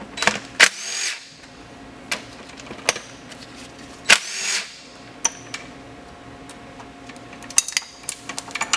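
A small power tool spinning out two 10 mm bolts in two short whirring bursts whose pitch rises as it spins up, the first about a second in and the second about four seconds in. Sharp clicks and clinks of metal parts and tools come in between, thickest near the end.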